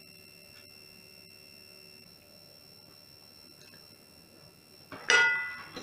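A faint, steady high-pitched whine, then about five seconds in a single loud ringing clink of tableware on a plate, dying away quickly.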